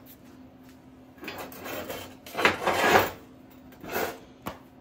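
Things being slid and shifted about in a workshop: three scraping, rubbing noises, then a single sharp click near the end.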